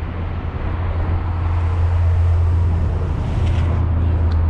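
A motor running steadily with a low drone, under an even rushing noise.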